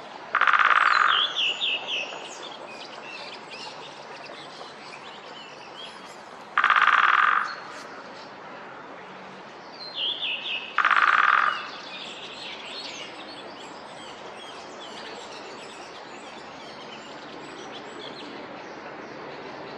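Great spotted woodpecker drumming: three short, fast rolls of bill strikes on wood, each under a second, several seconds apart. Small birds chirp high in the background between the rolls.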